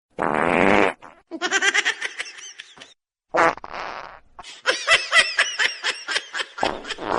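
A loud fart-like blast, then a run of human laughter. A second fart-like blast about three and a half seconds in is followed by a longer stretch of laughter.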